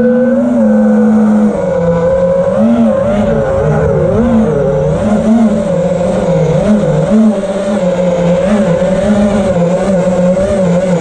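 A five-inch FPV freestyle quadcopter's four T-Motor F60 III 2500kv brushless motors, spinning three-blade props, whine continuously, heard close up from the onboard camera. The pitch wobbles up and down constantly with throttle changes.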